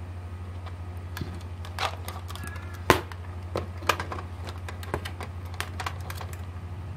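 Scattered small clicks and taps as a 1/24 scale model car, its plastic body and 3D-printed front suspension, is handled and turned over by hand, with one sharper click about three seconds in. A steady low hum runs underneath.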